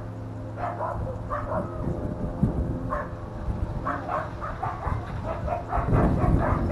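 Dogs barking in short, repeated bursts, with a low rumble that swells about six seconds in.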